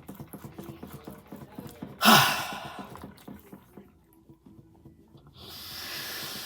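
A person chewing with soft rapid clicks, then a loud, sharp gasping breath about two seconds in, and a long hissing breath near the end. These are breaths against the burn of a hot and spicy chicken sandwich.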